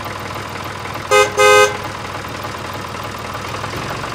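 Vehicle horn honking twice about a second in, a short honk then a slightly longer one, over a steady background noise.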